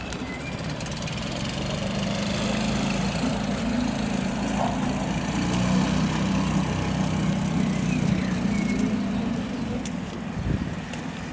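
Small outboard motor on an open skiff running steadily under way through flood water. It grows louder over the first few seconds and drops back near the end.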